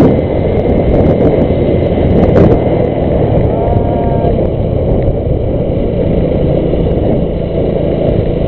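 Motorcycle on the move: the engine running under a loud, steady rumble of wind and road noise on the rider's camera microphone. A faint short wavering whine comes in about four seconds in.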